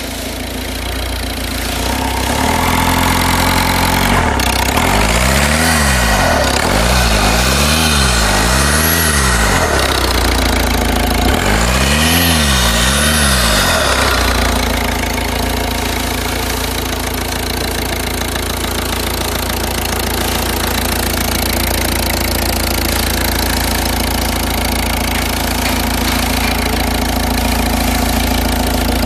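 Ford Focus 1.6 TDCi four-cylinder turbo-diesel engine (T1DB, 79,000 miles) running: idling, revved up and back down about four times in the first half, then settling back to a steady idle.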